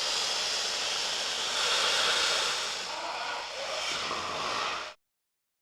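Space-themed sound effect: a steady, hiss-like rushing noise, like a jet, that swells slightly around two seconds in and cuts off suddenly about five seconds in.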